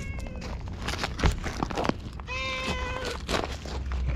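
Talkative tabby-and-white stray cat meowing twice: a short meow at the start and a longer, level meow a little after two seconds in. Scattered crunches of gravel underfoot come between the meows.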